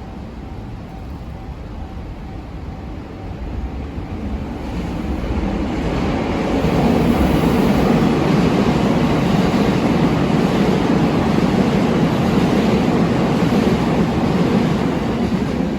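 JR Yumesaki Line electric train passing over a level crossing: a rushing rumble builds from about four seconds in, stays loud through most of the rest, and eases off slightly near the end. The crossing's warning bell dings faintly at the start before the train drowns it out.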